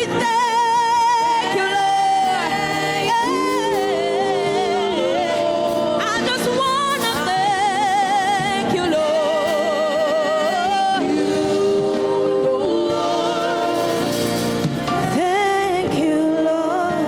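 Gospel worship singing: sustained, melismatic vocal lines with heavy vibrato over instrumental accompaniment.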